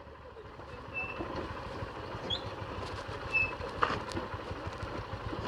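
Motorcycle engine running quietly at low speed on a rough dirt track, with scattered faint clicks and rattles. A few brief high chirps are heard over it.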